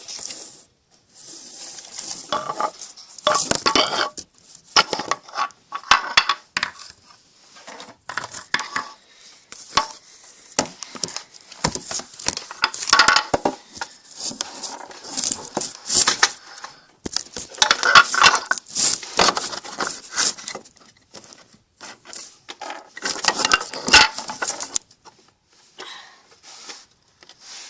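Small hard objects clinking and scraping as they are handled, in irregular bursts with short pauses between.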